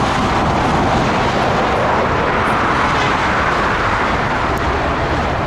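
Boeing 777 freighter's twin GE90 turbofan engines on final approach with the gear down: a steady, loud rushing jet noise with a low rumble underneath.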